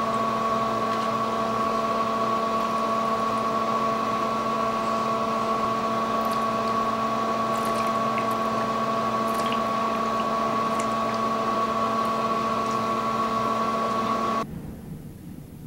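A steady machine hum in a small room, with faint gulps as a man chugs from a plastic bottle of malt liquor. The hum cuts off suddenly near the end.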